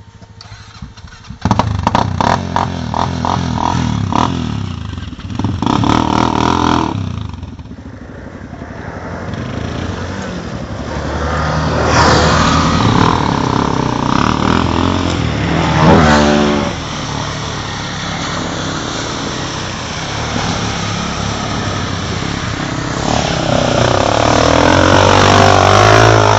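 Quad bike engines revving and running under load as the quads ride through mud, starting about a second and a half in. There are sharp revs that rise in pitch about halfway through, and the engine gets louder again near the end.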